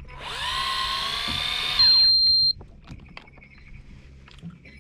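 Electric fishing reel's motor winding in: a whine that rises in pitch as it spins up and holds steady. A loud high beep sounds, the whine falls away, and both stop suddenly about two and a half seconds in. Faint clicks and knocks follow.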